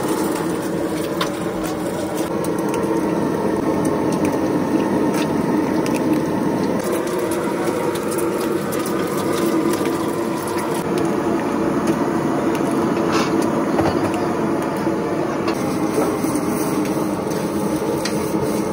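Eggs sizzling on a large flat iron griddle, with scattered sharp clicks as more eggs are cracked open over it.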